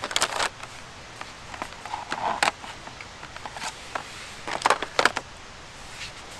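Sheet-film holders for a large format camera handled and set down, with sharp plastic clacks in clusters near the start, about two and a half seconds in, and around five seconds in.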